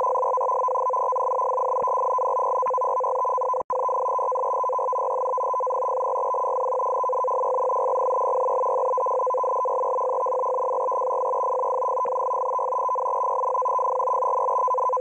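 Shortwave radio data signal, the Russian M42b transmission on 14380 kHz, heard through a receiver in CW mode. It sounds as two steady tones an octave apart over radio hiss. The signal cuts out for an instant about four seconds in.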